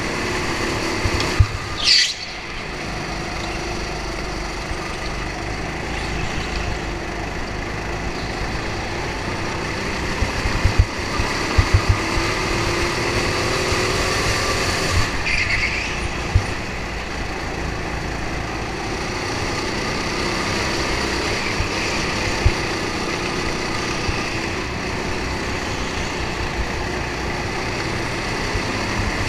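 Go-kart's small engine running under way, heard from onboard, its note rising and falling through the corners. A short, loud squeal falling in pitch comes about two seconds in, and a few sharp knocks come near the middle.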